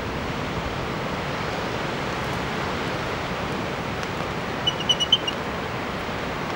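Steady rush of wind and surf, with a quick run of short high chirps from a bird about five seconds in.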